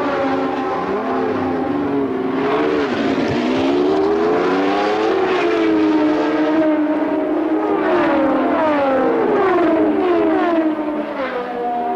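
Formula One racing engines running at high revs on track, several overlapping. Their pitch climbs and drops as the cars accelerate and change gear, with falling sweeps as cars pass by.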